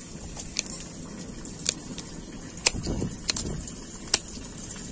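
Hand shears snipping through thin ficus roots and twigs: about five sharp, separate snips a second or so apart, with rustling of the roots and dry debris around the middle.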